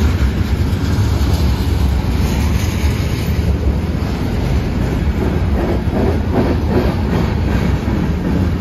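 Freight train of tank cars and covered hopper cars rolling past at close range: a steady, loud rumble of steel wheels on rail, with wheel clacks over the rail joints coming through more distinctly in the second half.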